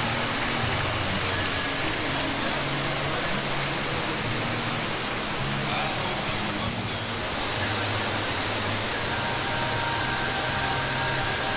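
Steady rushing noise, even in level throughout, with a faint murmur of distant voices underneath.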